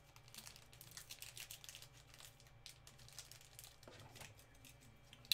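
Faint crinkling and small clicks of plastic-wrapped trading card packs handled in gloved hands.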